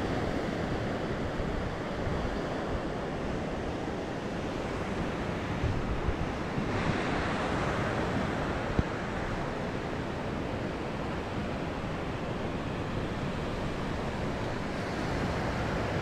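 Small surf breaking and washing up a sandy beach: a steady rush of waves that swells louder about seven seconds in as a bigger wave comes ashore. Wind buffets the microphone underneath.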